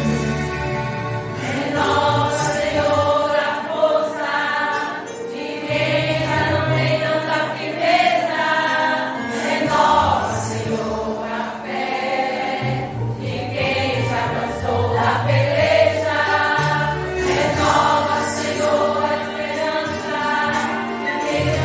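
Women's church choir singing a hymn in unison phrases, over instrumental accompaniment with a sustained bass line that changes note every few seconds.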